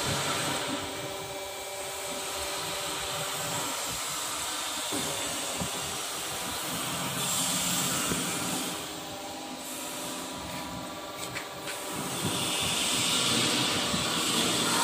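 Steady factory machinery hum and hiss, with a few faint knocks about ten to eleven seconds in.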